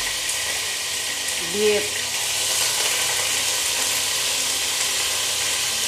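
Ground beef sizzling steadily in hot olive oil in a nonstick pot.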